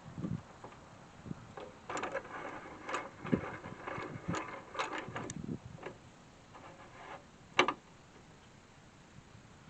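Scattered mechanical clicks and rattling knocks, busiest in the middle, with one sharp click near the end; no saw or engine running.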